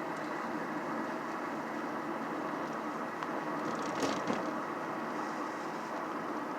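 A car driving: steady road and engine noise, with a brief click about four seconds in.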